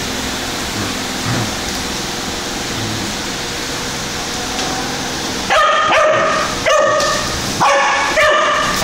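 Siberian husky puppy howling in four short, steady-pitched calls in quick succession over the last three seconds, after a stretch of steady hiss.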